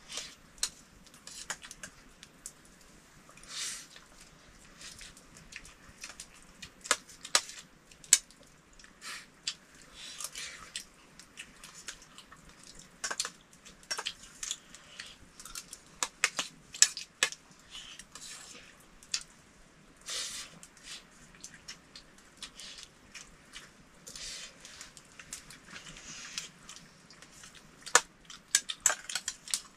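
Irregular light clicks and clinks of dishes and utensils, with short scraping sounds between them.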